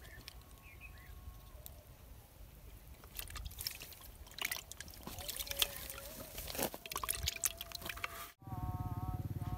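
Water splashing and dripping in short, scattered bursts as hands handle a freshly caught catfish in shallow muddy water and it lies in a water-filled tub. About eight seconds in, the sound cuts off abruptly and a louder, steady buzzing sound with a few held tones takes over.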